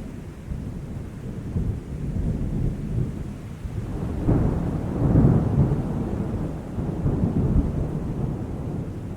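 Thunder rolling and rumbling in a heavy thunderstorm, swelling to its loudest about four to five seconds in and then rumbling on, with rain falling underneath.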